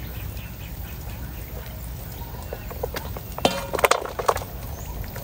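Shallow muddy water and silt worked with a plastic basket, under a steady low rumble, with a short burst of several sharp, pitched, nasal calls a little past halfway, the loudest sound here.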